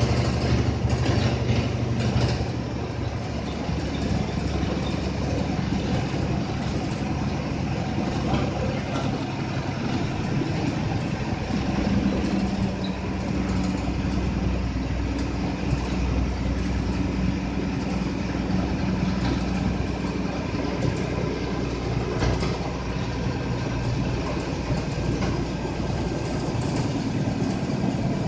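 Diesel engine of an APSRTC bus running steadily as it climbs the ghat road, heard from inside the bus along with road noise; the engine note changes about twelve seconds in.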